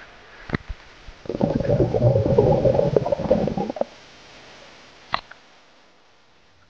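Waterproof camera dunked in the sea: a couple of seconds of loud, muffled water rushing and bubbling over the microphone housing. There is a sharp knock about half a second in and another near five seconds.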